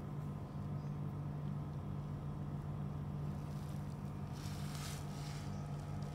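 Mother cat purring steadily while nursing her kittens, a continuous low rumble. A brief rustling about four and a half seconds in.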